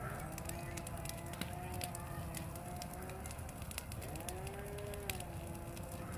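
Large brush-pile fire burning: many sharp crackles and pops over a low, steady rush of flame. A steady humming tone runs underneath, dipping and coming back about four seconds in.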